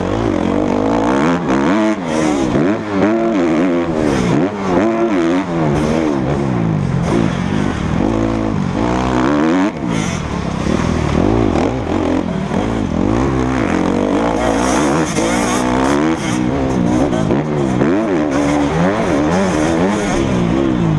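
Motocross bike engine heard close from the rider's helmet, revving hard and dropping again and again as the rider accelerates, shifts and backs off around the dirt track.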